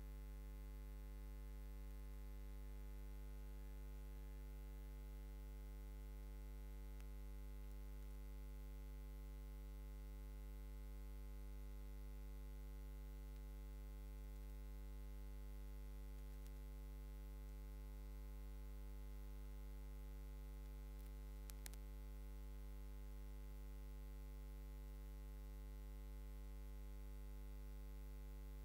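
Faint, steady electrical mains hum with a buzzy stack of overtones, from the sound system or recording feed, with no voices; a single faint tick about three-quarters of the way through.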